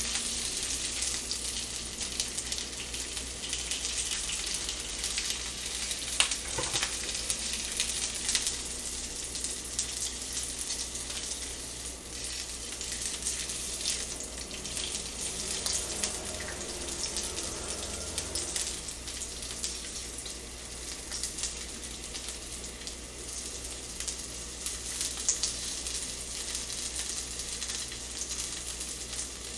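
Scored frankfurter sausages sizzling steadily in a frying pan, with a fine crackle and a sharp tap about six seconds in.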